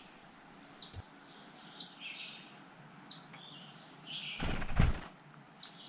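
Eastern phoebes at the nest giving short, high chirps, one every second or so. About four and a half seconds in, a brief rush of noise, the loudest sound here.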